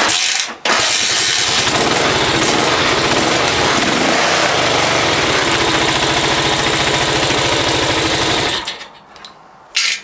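Moto Morini 350 (3½) V-twin kick-started: it fires within a second and runs loudly and steadily for about eight seconds, then cuts out abruptly. Firing straight away shows the rewired ignition key switch is passing spark.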